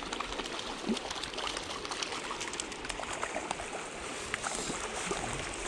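Steady rushing of flowing river water, scattered with many small, sharp clicks and ticks.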